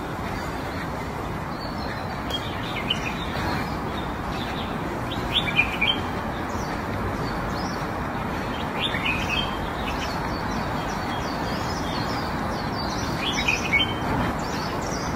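Small birds chirping in short groups of quick notes every couple of seconds, over a steady background hiss.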